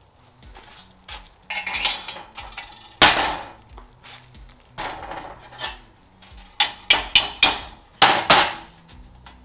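Metal parts and tools being handled, clanking and knocking against each other in irregular sharp hits: a loud one about three seconds in and a quick run of them near the end.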